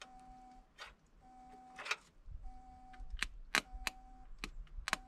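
An electronic warning beep repeating about once every 1.2 seconds, each beep about half a second long. It comes from the red battery unit hooked to the Datsun for jump-starting and keeps going because it cannot be switched off. From about two seconds in, sharp clicks and knocks join it as wiring and metal are handled in the engine bay.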